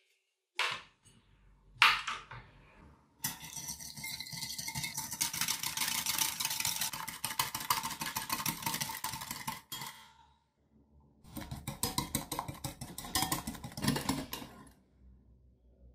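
Hand-held wire whisk beating instant coffee, sugar and hot water in a glass bowl, its wires clattering rapidly against the glass as the mixture is whipped toward a foam. The whisking stops briefly about ten seconds in, then starts again.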